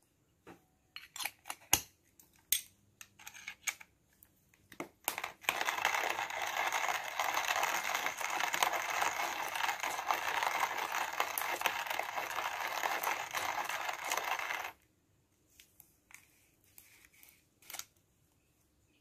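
A hand-cranked coffee grinder with scattered metallic clicks and rattles, then about nine seconds of steady, dense crunching as coffee beans are ground. The crunching cuts off abruptly and is followed by a few light clicks.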